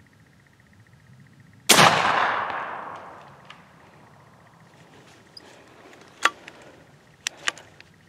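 AirForce Texan .457 big-bore air rifle fired once, a sharp loud crack about two seconds in whose echo dies away over about a second. A few short sharp clicks follow later on.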